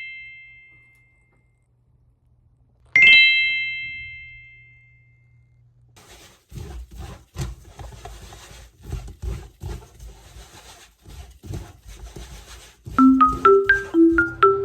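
A bell-like chime struck once and ringing out slowly, struck again about three seconds later; then a run of irregular knocks and clatter, and near the end a marimba-like melody begins.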